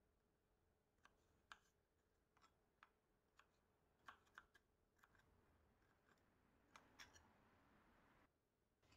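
Faint, irregular taps of a kitchen knife striking a cutting board as gherkins are diced, about a dozen cuts, stopping a second or two before the end.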